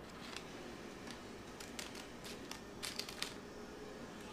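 Scissors snipping open paper packets of unflavored gelatin: a handful of faint, short snips and paper crinkles, spread out at uneven intervals.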